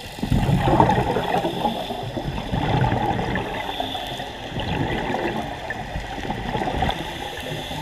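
Underwater bubbling and gurgling from a scuba diver's exhaled air, heard through the camera's waterproof housing. It starts suddenly and goes on as a rough, uneven low bubbling.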